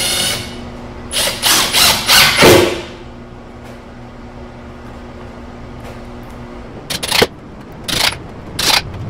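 Ridgid cordless drill driving a screw through a metal bracket into the wooden end panel, in several short loud bursts over the first three seconds. A few brief blips follow near the end.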